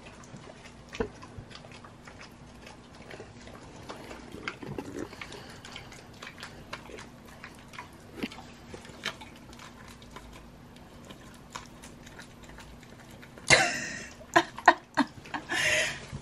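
Dog licking and chewing peanut butter from a dish right by the microphone: many small wet licks and smacks, much louder for the last few seconds.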